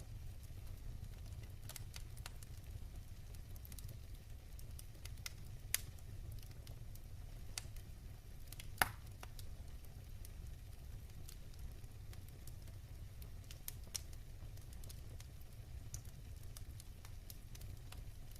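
Wood fire burning in a fireplace: a steady low rumble of the flames with scattered sharp crackles and pops, the loudest a little before the middle.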